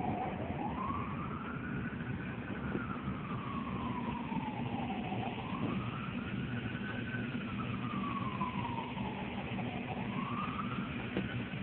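An emergency vehicle's wailing siren, its pitch rising and falling slowly, about five seconds per cycle. It is heard over the low rumble of a moving car, from inside the cabin.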